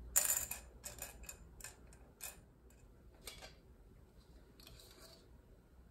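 Clear plastic craft gems dropped into a glass bowl, clinking against the glass and each other as a series of light clicks, the loudest just after the start. A brief soft rustle near the end.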